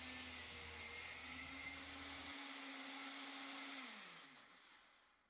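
Nutribullet blender motor running steadily while blending a runny batter of oats, egg whites and almond milk, then winding down with a falling pitch and stopping about four seconds in.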